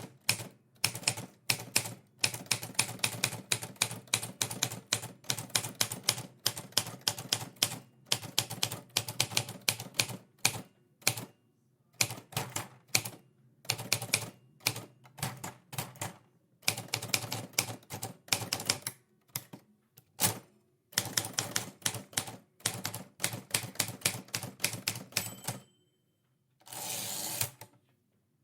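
Typewriter keys struck in quick runs of clicks, separated by short pauses. Near the end there is a longer, noisier sliding sound lasting about a second, as of the carriage being pushed back.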